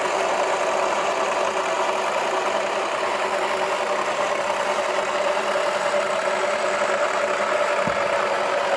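Toy washing machine's small electric motor running steadily, a continuous whir with a steady tone over a hissy rattle.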